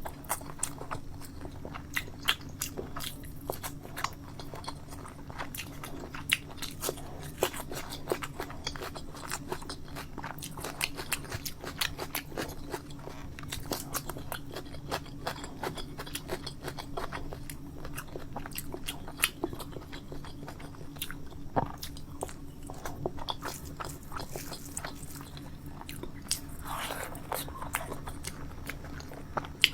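Close-miked eating: a person chewing and biting food, with many quick wet mouth clicks and occasional crunches, over a steady low hum.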